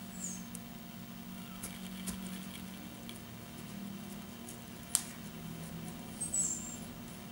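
Paring knife scoring and cutting into a cantaloupe's rind: faint scattered scratches and small clicks, with one sharp click about five seconds in and two brief high squeaks, over a steady low hum.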